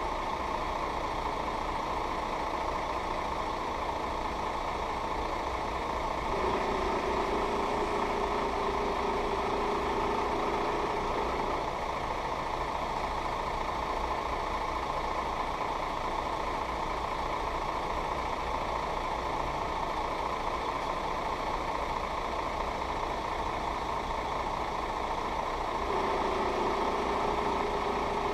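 Steady engine hum with a hiss, joined twice by a steady mid-pitched tone lasting about five seconds each time.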